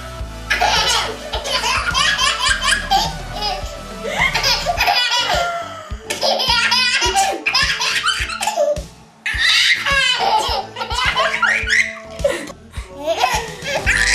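A one-year-old baby laughing in repeated runs of giggles and belly laughs, with short breaths between, easing off briefly about nine seconds in. Music plays underneath.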